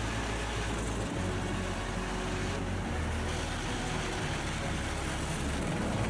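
Pezzolato PTH 1200/820 HT truck-mounted drum chipper running under load while chipping logs: a steady heavy engine drone with a dense grinding, rushing noise of wood being shredded and chips blown out of the spout.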